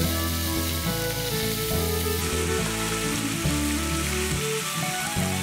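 Pork ribs sizzling as they fry in hot oil in a pan, a steady crackling hiss, under background music with a steady bass line.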